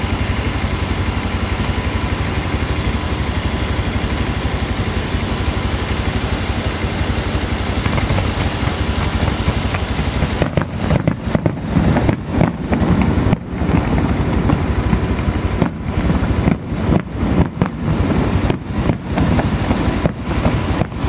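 A motorcycle engine idling steadily, with distant fireworks bursting. From about halfway, the sound turns uneven, with repeated brief dips and surges.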